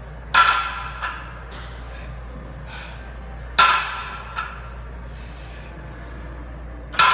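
A trap bar loaded with iron plates is set down on each deadlift rep. There are three sharp metallic clanks about three seconds apart, each ringing briefly, and the first two are followed by a lighter knock.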